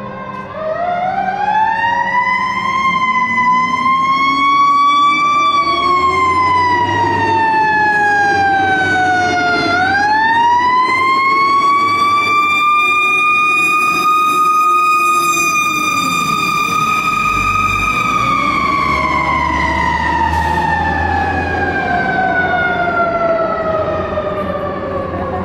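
Fire engine's Federal Q mechanical siren winding up in a slow rising wail, sagging, wound up again and held high, then coasting down in a long falling wail as the truck drives away. The truck's engine rumbles underneath.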